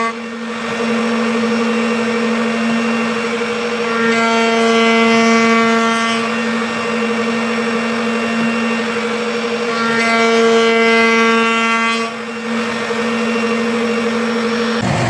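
Router-table router running at speed with a steady high whine while a roundover bit rounds the edges of a wooden knife-handle blank. Twice, about four and about ten seconds in, the whine grows fuller and a little louder for a couple of seconds.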